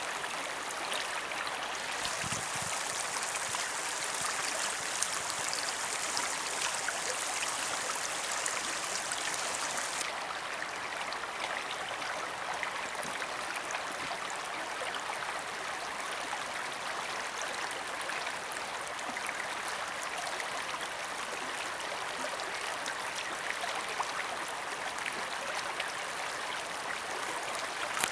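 Shallow water running over stones in a mountain stream or lake edge: a steady rush of moving water, its hiss a little softer after about ten seconds.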